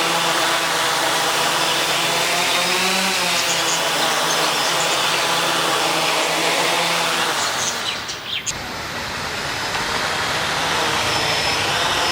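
Small electric drone motors with propellers whirring at high speed, their pitch slowly rising and falling. About eight seconds in the sound drops out briefly and then spins back up.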